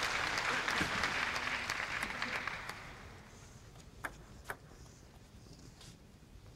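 Spectators' applause after a table tennis rally, dying away about three seconds in; a few sharp isolated taps follow.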